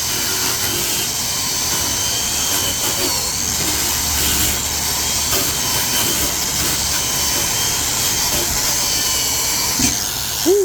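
Electric angle grinder with a wire wheel running steadily against a corroded brake rotor, scouring off rust with a loud, even hiss.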